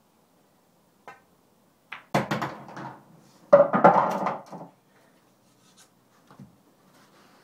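Snooker balls being played: a light click of the cue tip on the cue ball about a second in, then two loud spells of clacking and rattling about two and three and a half seconds in as the yellow is potted in a corner pocket, followed by a few faint knocks.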